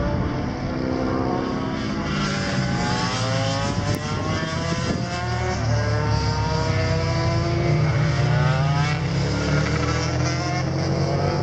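Racing motorcycle engines revving out of sight, several overlapping, their pitch climbing again and again as they accelerate.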